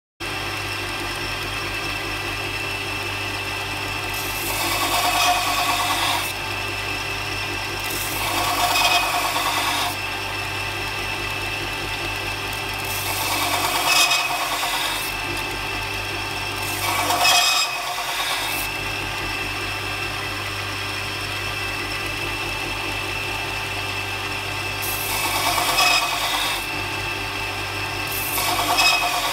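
Bench belt sander running steadily, with a 15 mm steel drill bit pressed against the moving belt six times to sharpen its cutting edges. Each press is a rasping grind lasting one to two seconds.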